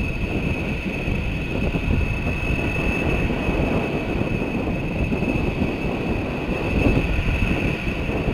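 Jet engines of a B-1B Lancer bomber (four General Electric F101 turbofans) running at taxi power: a steady high whine over a low rumble.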